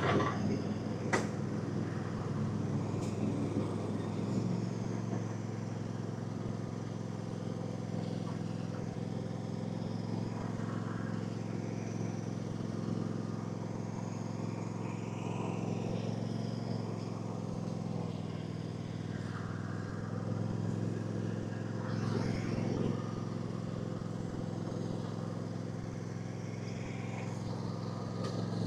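Riding lawn mower engine running steadily at an even speed, with a sharp click about a second in.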